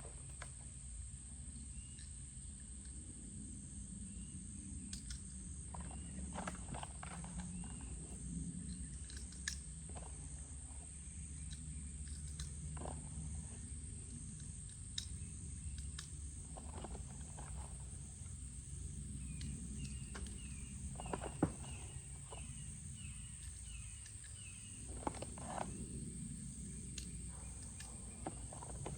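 Quiet outdoor ambience: a steady high-pitched insect drone with scattered faint clicks and knocks of handling. A short run of repeated bird-like chirps comes about twenty seconds in. No shot is fired.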